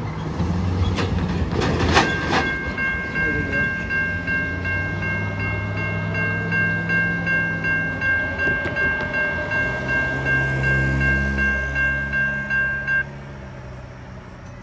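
Safetran Type 3 electronic crossing bell ringing in a fast, even ding pattern. It starts about two seconds in, after a few sharp clicks, and cuts off abruptly near the end once the crossing gates are down. A low rumble of road traffic runs underneath.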